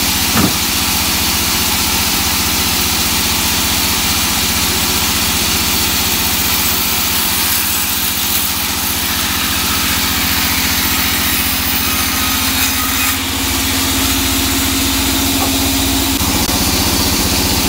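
Large sawmill band saw running steadily while a gnarled piece of teak is pushed through the blade. One steady tone in its hum stops about sixteen seconds in, as the table is cleared.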